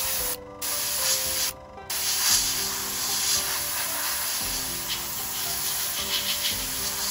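Airbrush hissing as it sprays paint, cutting out briefly about half a second in and again at about one and a half seconds. Background music plays underneath.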